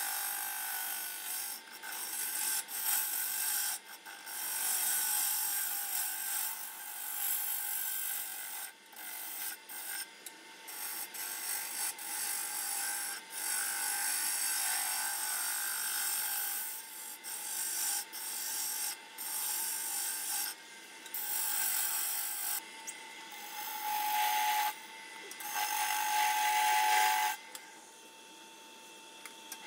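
Turning gouge cutting a spinning red cedar blank on a wood lathe: a hissing shaving sound that comes in passes with short breaks. The cutting stops near the end.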